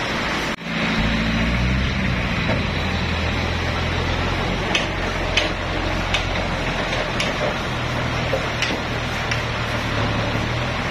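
Toyota 3.5-tonne forklift's engine running steadily, a low hum that starts after a brief break about half a second in. Scattered sharp clicks and clanks sound over it through the second half.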